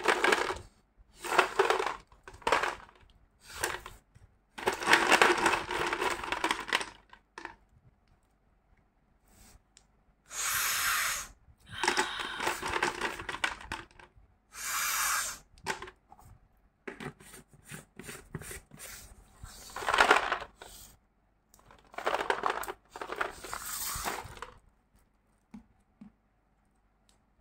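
Naphthalene mothballs rattling and clattering against the inside of a glass jar as the jar is shaken and tilted, in repeated bursts of one to two seconds with short pauses between.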